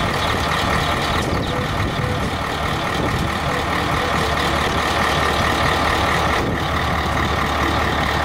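Heavy three-axle dump truck's diesel engine running steadily while its tipper body is raised hydraulically.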